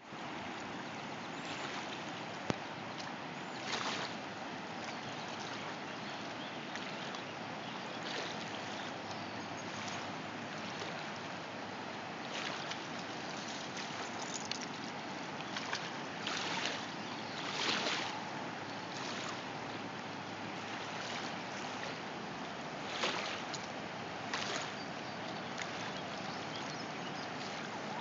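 Steady rushing hiss of river water at the bank, with a few short splashes as a pug wades in the shallows.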